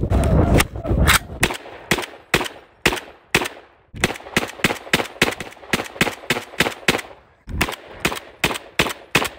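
Semi-automatic M60 (Desert Ordnance SA60) firing 7.62×51 mm rounds in quick strings of about three shots a second, with two brief pauses between strings. A low rumble sits under the first shots.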